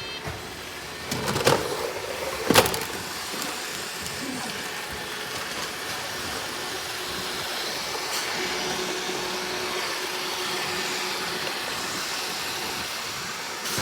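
Robot vacuum running with a steady whir from its suction fan and brushes, with a few knocks in the first three seconds, the sharpest about two and a half seconds in.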